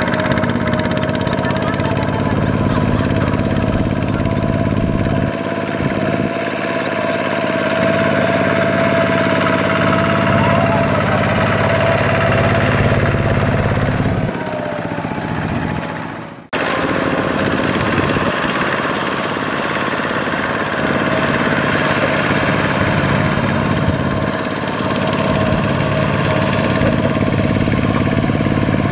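Single-cylinder diesel engine of a two-wheel walking tractor running steadily while it pulls a loaded trailer through mud. Its sound dips briefly and breaks off abruptly about halfway through, then carries on as before.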